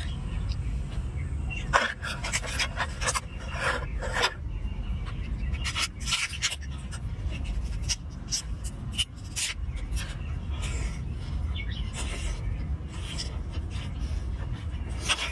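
Cooked lobster shell being twisted and cracked apart by hand, with irregular sharp cracks and crunches, then biting into the tail. A steady low rumble runs underneath.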